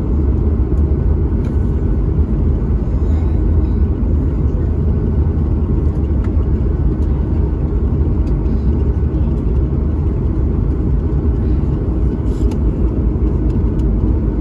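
Steady low rumble inside the cabin of a Boeing 737 MAX 9 airliner, from its engines and the air rushing past the fuselage.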